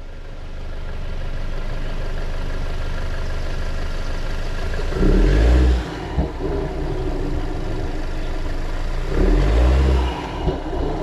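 2019 Alfa Romeo Stelvio running steadily, with two loud grinding episodes of just under a second each, about five seconds in and again about nine seconds in. This is the grind noise the owner is recording as a fault.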